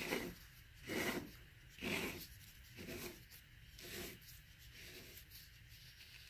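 Bottle jack's threaded top nut being screwed down by hand over the ram, a short metal scrape with each twist of the hand about once a second, fading after a few turns.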